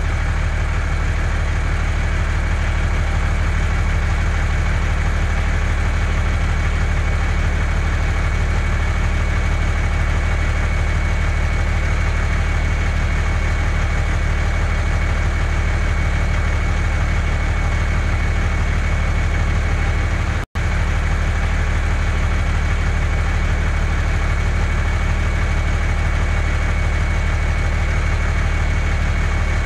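Steady, unchanging engine idling sound of a heavy truck, a recorded sound effect rather than the toy, which has no engine. It cuts out for an instant about two-thirds of the way through.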